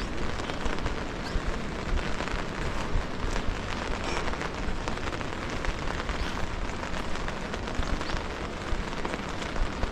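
Steady rain falling, with many small scattered drop taps over an even hiss.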